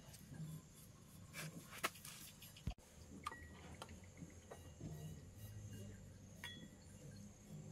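Faint, scattered light clicks and knocks of hand work on small metal parts, with two sharper clicks about two and three seconds in.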